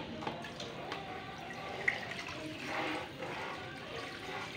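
Gas stove burner freshly lit, hissing steadily under a lidded aluminium pot of soup, with one small tick about two seconds in.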